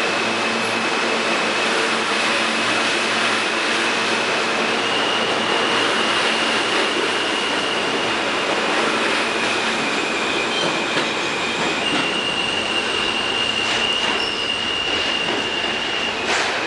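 R160A subway train pulling out of the station, its wheels running with a loud steady rumble and a high, steady wheel squeal that shifts pitch twice. A few sharp wheel clicks sound near the end as the last car passes.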